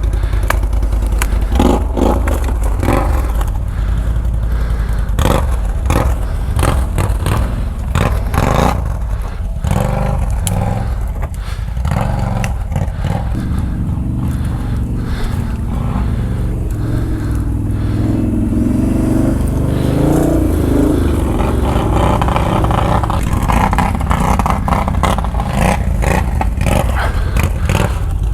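ATV engine running under load with repeated revving, as the machine crawls over rough rocky ground amid knocks, scrapes and clatter.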